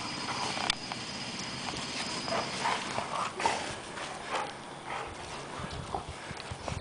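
Two golden retrievers, an adult and a puppy, play-wrestling on concrete: scuffling, with irregular claw taps and scrapes on the ground and brief vocal noises from the dogs.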